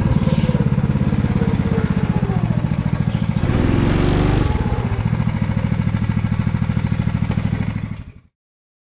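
Go-kart's petrol engine running, heard from on board, with a fast, even pulsing beat and a brief shift in pitch about halfway through; the sound cuts off suddenly about eight seconds in.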